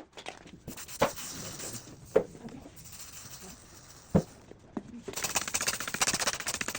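Hand-tool work on plumbing: three separate sharp knocks, then from about five seconds in a fast, even clicking like a ratchet being worked.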